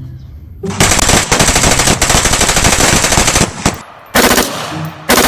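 Automatic rifle fire: a long rapid burst lasting about three seconds, a short burst after a brief pause, then another rapid burst starting near the end.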